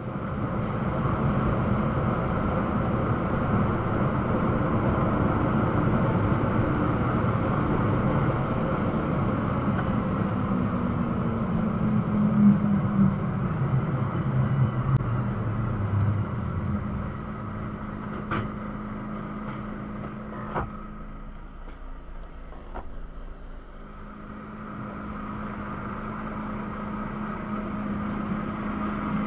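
Truck engine and road noise heard from inside the cab. The engine note falls over several seconds as the truck slows, then holds at a steady pitch, with a few faint clicks.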